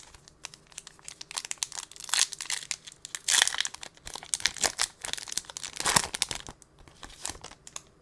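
A trading-card pack's foil wrapper being crinkled and torn open by hand: a run of crackling rustles with a few louder tearing bursts, the loudest about two, three and a half and six seconds in.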